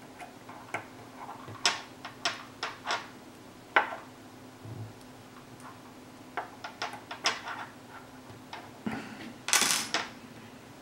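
Small metal hotend parts being handled by hand, giving scattered sharp clicks and light taps as wires are worked into an aluminium heater block. A longer, louder rustling clatter comes near the end.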